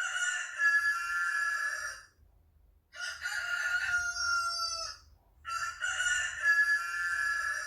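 Rooster crowing three times, each cock-a-doodle-doo lasting about two seconds.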